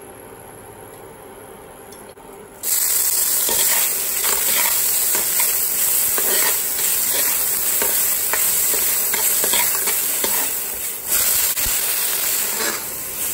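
Chopped garlic and onion dropped into hot oil in a wok about two and a half seconds in, starting a loud, steady sizzle, with a stainless steel spatula scraping and stirring against the pan. Near the end raw prawns go into the wok and the sizzling surges again.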